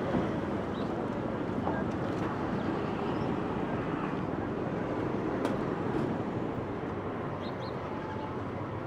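City street ambience: a steady wash of traffic rumble and general street noise, with a few faint high chirps and a couple of sharp clicks around the middle.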